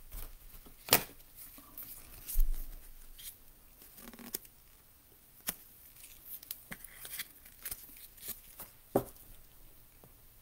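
Trading cards being handled and slipped into a clear plastic penny sleeve: scattered light clicks, taps and soft plastic crinkling, with a duller thump about two and a half seconds in.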